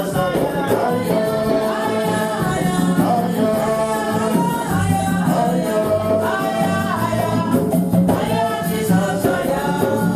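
Church music: a group singing with percussion and bass accompaniment.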